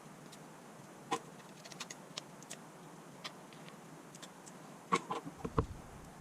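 Scattered small clicks and taps of tools and phone parts being handled during a smartphone repair, with the loudest few clicks about five seconds in.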